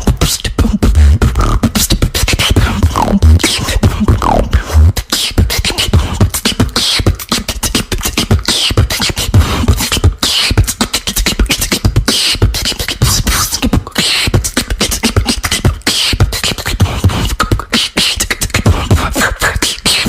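A person beatboxing: a fast, unbroken run of mouth clicks, snares and deep bass kicks, mixed with short gliding vocal sweeps.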